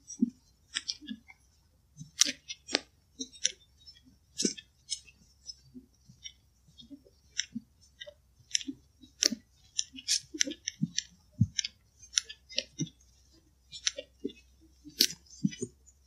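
Footsteps through dry forest litter: an irregular run of crunches and small snaps, two to four a second, each with a dull thud under a sharp crackle.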